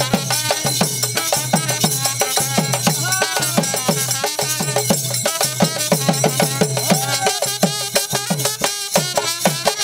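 Folk band music: a double-headed barrel drum (dhol) beaten in a fast, steady rhythm, its low strokes sagging in pitch, with a wavering melody line over it.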